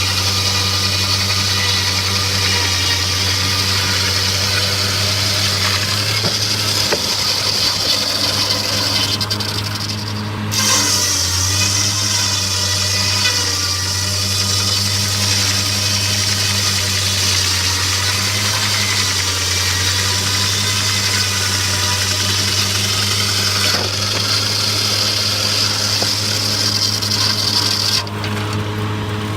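Circular sawmill machinery running with a steady, even hum, topped by a high hiss that breaks off briefly about ten seconds in and again near the end.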